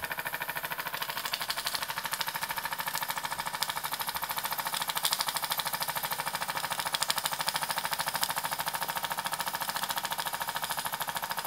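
A Mamod ME3 single-cylinder oscillating steam engine running steadily at speed, giving a rapid, even beat of exhaust chuffs and mechanical ticking. It is driving a three-bladed brass propeller that spins in the air with the boat out of the water.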